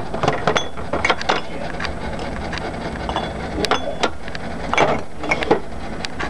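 Irregular clicks and knocks of small hard objects being handled, a few a second, over a steady low hum.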